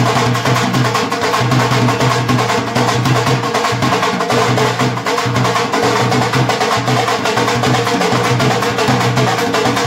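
Loud music with fast, busy drumming that runs on without a break.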